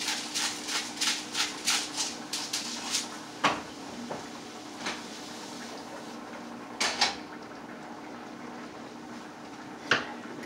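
Salt shaken from a shaker over a frying pan in quick, even shakes, about three a second, for the first three seconds. Then a few separate clanks and knocks of the pan and utensils on the stovetop, the loudest about seven seconds in and another near the end, over a steady low hum.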